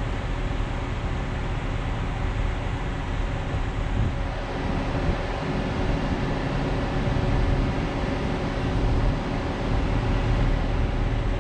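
Steady street traffic noise, a low rumble of road vehicles that swells a little from time to time.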